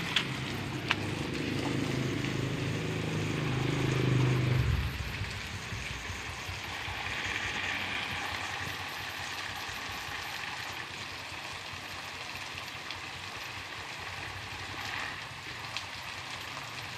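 Garden hose spray hissing and pattering down onto dry leaf litter and a concrete edge. A low mechanical hum sits underneath for the first few seconds and cuts off suddenly about five seconds in.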